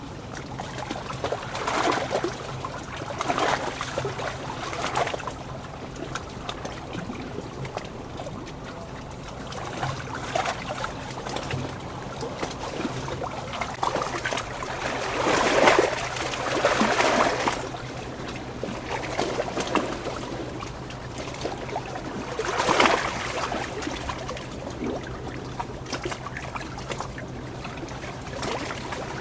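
Water trickling and splashing, with louder surges every few seconds.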